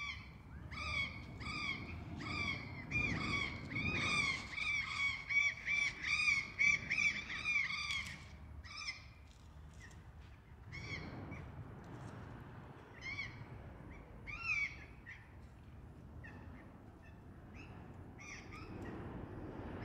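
A bird calling repeatedly in quick short calls, about two or three a second, for the first half. The calls then thin out to a few scattered ones.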